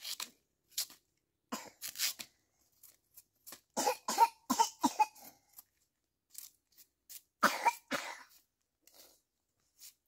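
A person coughing in short bursts, a cluster about four seconds in and two harder coughs about seven and a half seconds in, with scattered small clicks between.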